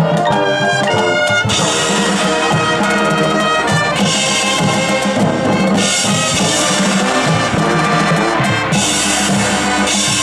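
High school marching band playing: a few clear ringing percussion notes, then the full brass section with drums and cymbals comes in loud about a second and a half in and carries on.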